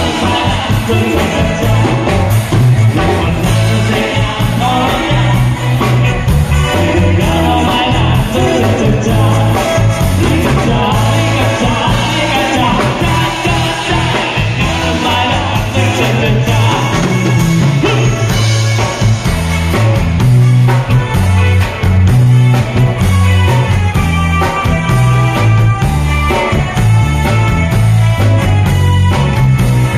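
Live band playing a rock song through PA speakers, with a vocalist singing over drums, bass, electric guitar and keyboard.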